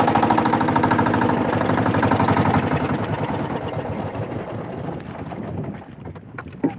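A small outrigger boat's inboard engine runs with a rapid, even chugging. It then winds down and fades out about five to six seconds in as the boat is throttled back.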